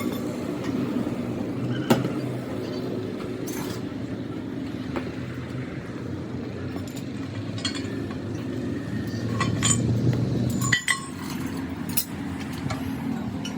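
Steady low mechanical hum with scattered sharp metal clinks, as of steel parts and tools being handled in a workshop.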